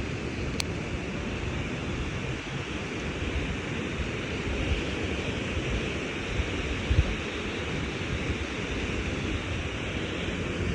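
Lake Michigan surf at about six feet crashing on the beach, a steady heavy rush of breaking waves with wind buffeting the microphone.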